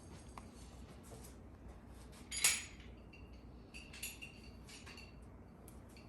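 Metal objects being handled: one loud ringing clank about two and a half seconds in, then a few lighter metallic clinks.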